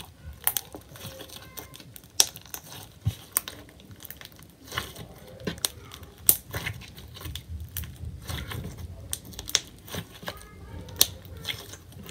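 Hands squeezing, folding and stretching clear slime streaked with red food colouring, giving sharp wet pops and clicks at irregular intervals with a soft squishing crackle in between.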